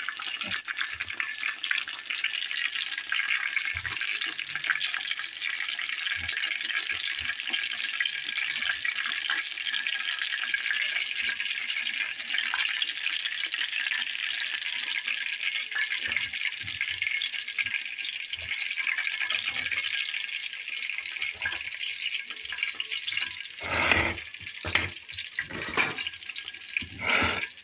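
Chicken köfte patties deep-frying in a pot of hot oil: a steady sizzle and crackle of bubbling oil. Near the end, a few sharp knocks.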